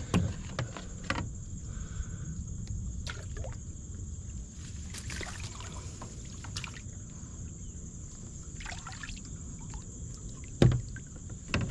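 Handling noise from a kayak among shoreline brush: scattered rustles and light clicks of branches, and a sharp knock near the end, over a steady low rumble and a steady high hiss.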